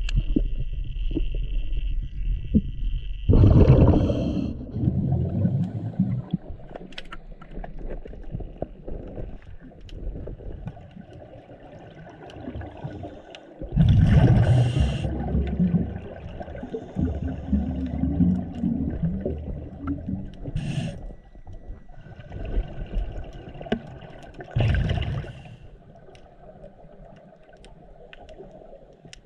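Scuba diver breathing through a regulator underwater: a hissing inhale, then a burst of exhaled bubbles, three times about ten seconds apart.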